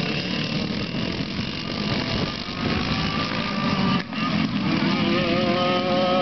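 Several racing kart engines, including a Yamaha KT100 two-stroke with an expansion pipe, running at high revs. There is a brief dip about four seconds in. After that a steadier high whine rises slightly and holds.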